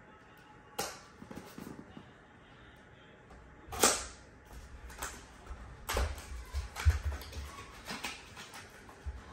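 Small cardboard product box being slit open with a knife and handled: scattered clicks, scrapes and taps of the packaging, the loudest about four seconds in, with a few low thuds between six and seven seconds.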